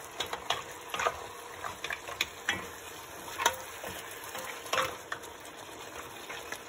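Wooden spoon stirring a seafood stew in an enamelled pot, with irregular knocks and scrapes of the spoon against the pot and the shellfish, over a steady sizzling hiss from the pot.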